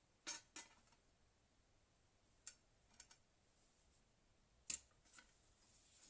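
Near silence broken by about six faint, sharp clicks and taps of small hard parts being handled, two close together near the start and a louder one about three-quarters through.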